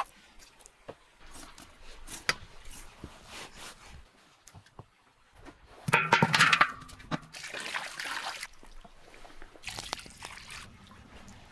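A run of meat-preparation sounds: scattered knife clicks while raw ram fat is trimmed on a wooden board, then a loud rush about six seconds in as a bowl of chopped meat is tipped into a large metal pan, and water poured from a metal jug onto the meat near the end.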